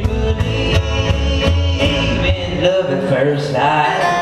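Live acoustic band playing: a strummed acoustic guitar over an upright bass, with a male voice singing. The low bass notes drop out about two and a half seconds in.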